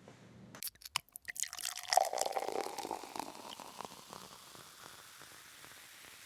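Watery dripping and splashing sounds mixed with clicks, loudest about two seconds in and fading away over the next two seconds into a faint steady hiss.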